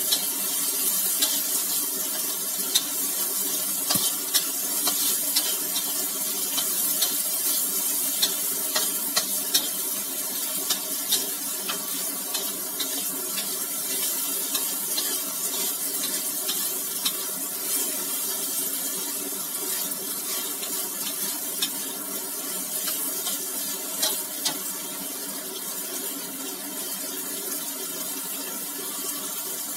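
Sliced lotus root frying in a wok: a steady sizzling hiss, with a metal spatula clicking and scraping against the pan many times as the food is stirred.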